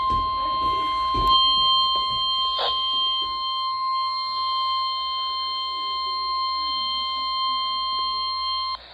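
NOAA Weather Radio 1050 Hz warning alarm tone, sent as part of the Required Weekly Test and heard through a weather radio receiver: one steady, unbroken tone that cuts off suddenly near the end, with a couple of short clicks under it in the first few seconds.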